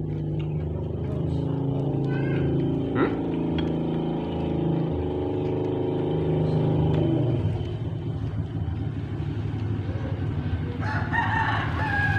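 A motor vehicle's engine runs steadily close by, then fades away after about seven seconds. Near the end a farm animal gives a wavering call.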